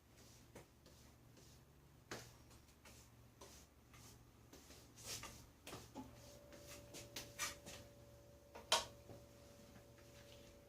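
Faint, scattered scrapes and clicks of a trowel smoothing a freshly applied anti-condensation coating on a wall, with one sharp click about three quarters of the way through.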